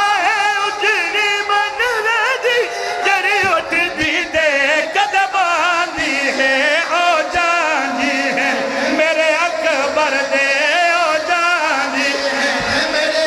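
A man's voice chanting a mournful lament in long, wavering notes with heavy vibrato, amplified through a microphone, with a crowd of mourners behind it.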